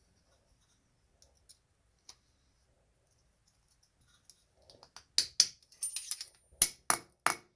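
Handmade slip joint folding knife being worked, its blade snapping against the 1084 steel backspring. A few faint ticks in the first half give way to about five sharp clicks in the last few seconds, with a brief thin metallic ring among them.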